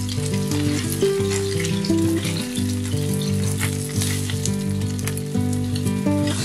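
Food frying in hot oil, a steady sizzle with many small crackling pops.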